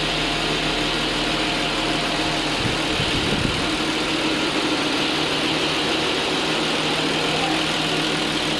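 Classic Mercedes-Benz engine idling steadily, with a brief low rumble about three seconds in. The owner puts the engine's sound problem down to the camshaft adjuster (vanos) sprocket.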